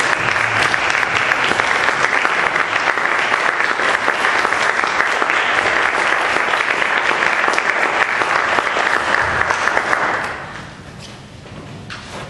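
Audience clapping steadily for the performers, then dying away about ten seconds in.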